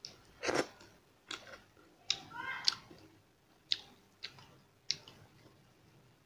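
A person eating rice and curry by hand from a steel plate, with irregular sharp, wet clicks and smacks of mouth and fingers, about eight of them.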